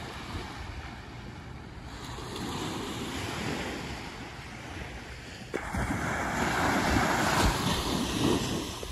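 Small waves breaking and washing up on a sandy beach, with wind rumbling on the microphone. The surf becomes suddenly louder about five and a half seconds in.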